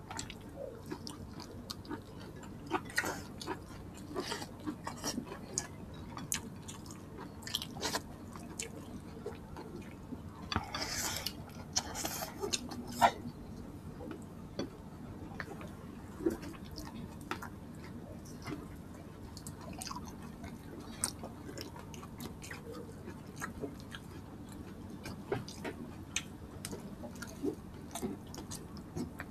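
Close-up eating sounds of people eating by hand: chewing, biting and wet mouth smacks as many short clicks, with a few seconds of louder, hissier sound near the middle.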